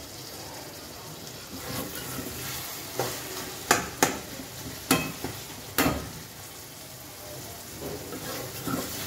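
Tomatoes and onions sizzling in oil in a metal kadai while a spoon stirs them, the spoon knocking sharply against the pan about five times between three and six seconds in.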